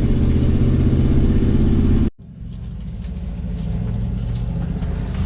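The 1977 Chevy C20 pickup's engine runs steadily with a deep, even note. About two seconds in it cuts off abruptly, then comes back quieter and steadier, with a few light clicks near the end.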